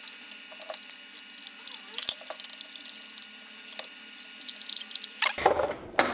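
Light clicks and rattles of a plastic lantern housing and a lithium battery pack with its cables being handled, with a sharper click about two seconds in. The handling grows louder near the end.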